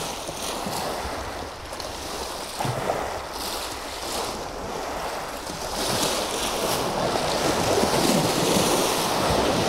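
Sea waves washing onto a pebble beach, with wind buffeting the microphone; the surf grows louder in the second half.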